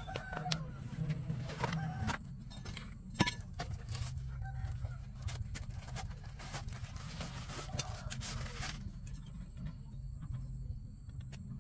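Chickens clucking now and then over a steady low hum, with scattered clinks and knocks of metal tools being handled; one sharp clink about three seconds in is the loudest sound.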